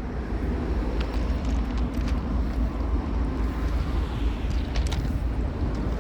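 Freight train locomotives rumbling low, with a few faint clicks.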